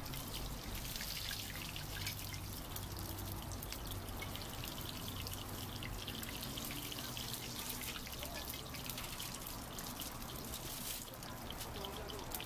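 Scallion pancakes deep-frying in a wok of hot oil: steady sizzling with dense fine crackle, over a low steady hum.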